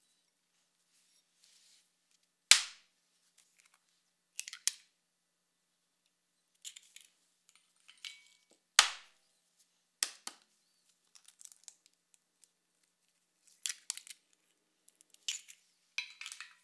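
Two eggs cracked open one after the other: two sharp cracks about six seconds apart, each followed by softer clicks and taps of eggshell.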